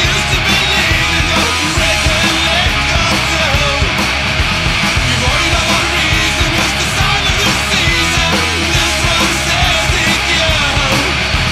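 Loud stoner rock music, played continuously.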